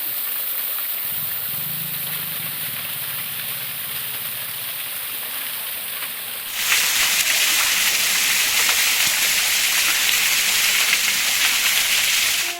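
Steady rush of water falling at a small waterfall, a hissing noise that turns suddenly louder about halfway through.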